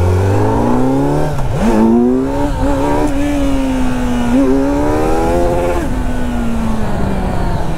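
Kawasaki Z900's inline four-cylinder engine accelerating hard, its pitch climbing through two quick gear changes about a second and a half and four and a half seconds in, then the throttle rolls off near the end and the note falls away. Wind buffets the microphone underneath.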